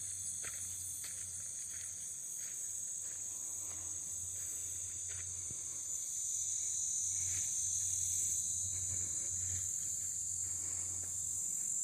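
Steady, high-pitched chorus of crickets and other late-summer insects, growing louder about halfway through.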